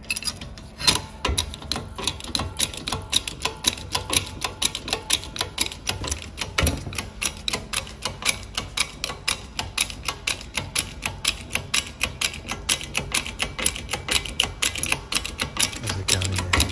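Hand-pumped hydraulic bottle jack on a pipe bender: a steady run of sharp metallic clicks, about three a second, as the pump handle is worked to force a steel rod around the bending former.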